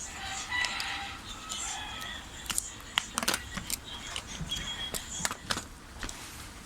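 Irregular sharp clicks and light taps of small hard objects being handled, about a dozen over a few seconds, with faint high chirping in the background during the first two seconds.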